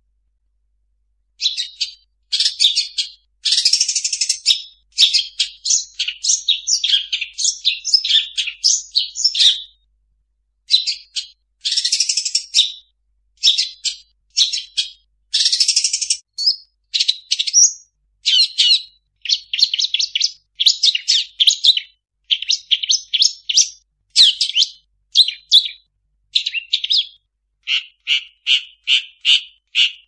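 Long-tailed shrike (cendet) singing a varied, chattering song packed with mimicked calls of other birds, in phrases broken by short pauses. Near the end it sings a run of short notes repeated about three times a second.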